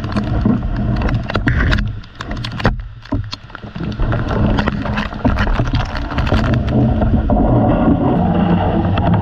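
Heavy rain and gusting wind on a GoPro 8 strapped in a tree: a loud rumble of wind buffeting the microphone, with a spatter of raindrops striking the camera. The wind drops off briefly about two seconds in, then builds again.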